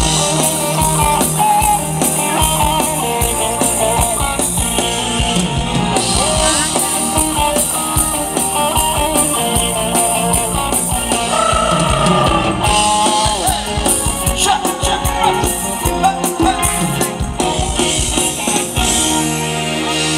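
Live band playing a Thai ramwong dance tune with a steady beat. Near the end the beat stops and held notes ring on.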